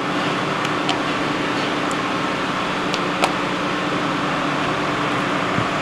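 Steady machine hum, like the drone of a fan, with a few sharp light clicks, the clearest about three seconds in.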